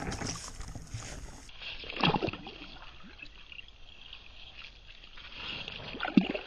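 Water sloshing and splashing in an ice-fishing hole as a bass is slipped back in and a hand reaches into the water, with two louder moments, about two seconds in and near the end.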